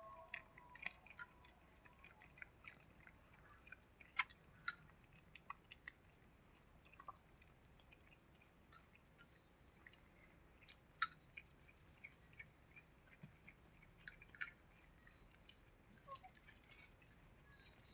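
Faint, irregular small clicks and crunches of a cat chewing its food.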